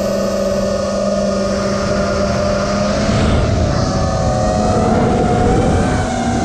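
FPV quadcopter's motors and propellers heard from the onboard camera: a steady whine at first, then from about three seconds in a rougher rush with the pitch wavering up and down as the throttle changes during banking.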